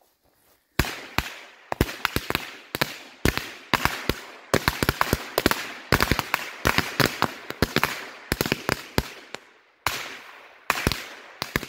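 A bundle of about 31 three-shot firecrackers going off together: a rapid, irregular string of sharp bangs starting about a second in, with a short pause near the end before a last few.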